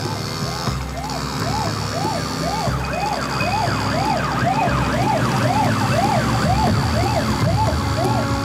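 Fire engine siren wailing up and down about twice a second and growing louder, with more siren wails higher up joining about three seconds in. A low vehicle rumble runs beneath.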